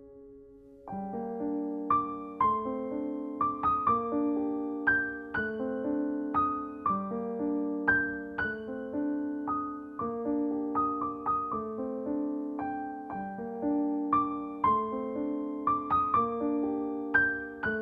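Soft background piano music: a gentle repeating pattern of struck notes and chords that begins about a second in, after a held chord fades.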